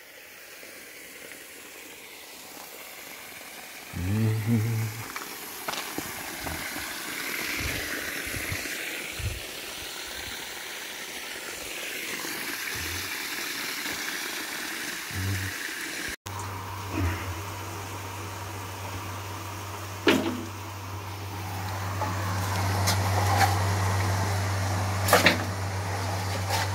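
Water gushing from a pump's discharge hose as a well is pumped out, a steady rush of spray. After a cut, a steady low motor hum with a few sharp knocks, heard down a concrete well shaft.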